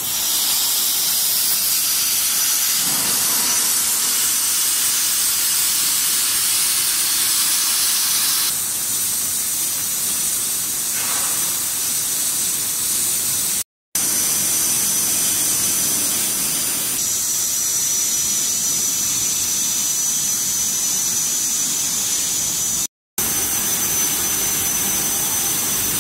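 CNC plasma cutting torch cutting steel plate: a steady loud hiss with a thin high whistle over it, cutting out abruptly to silence twice for a moment.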